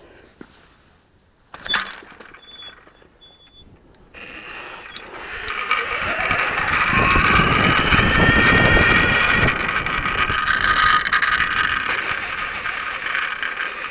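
Electric bike pulling away and riding. The motor whines, rising in pitch and then holding steady, over tyre and wind noise. Before it there is a click and a few short, high metallic pings, the strange pinging noise that the rebuilt drivetrain is making.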